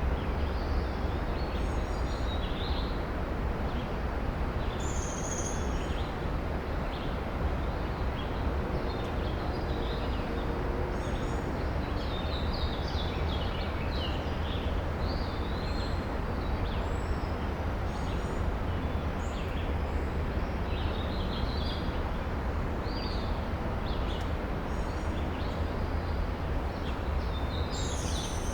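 Songbirds chirping and calling in short, high notes scattered throughout, over a steady low rumble.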